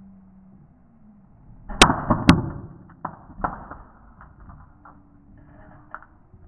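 Two loud, sharp cracks about half a second apart, followed by a scatter of fainter clicks and pops.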